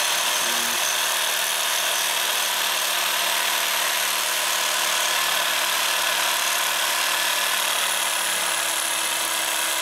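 Cheap Harbor Freight reciprocating saw with a dull blade running steadily without a break, cutting through the cast metal housing of an ATV front differential.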